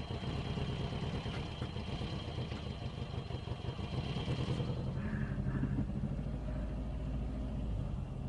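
An engine running steadily, a low rumble with a fast even pulsing.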